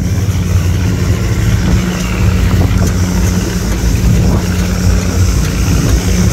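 Fishing boat's engine running steadily under way, with a constant hiss of water and wind over it.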